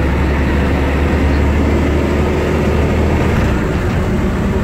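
Ikarus 280 articulated bus's diesel engine running with a steady low drone; the low note drops and changes about three seconds in.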